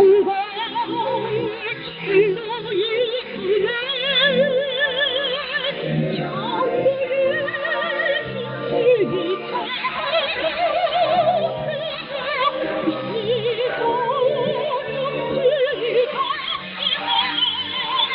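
Operatic-style singing with strong vibrato over instrumental accompaniment, from a North Korean song for female solo and male chorus. It is received over shortwave radio, so the sound is narrow and cut off above about 5 kHz.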